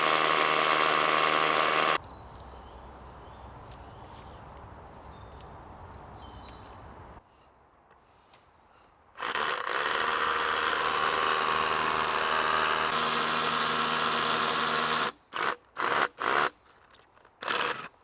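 Power drill drilling a hole. It runs steadily for about two seconds at the start and again for about six seconds from the middle, then gives several short bursts near the end.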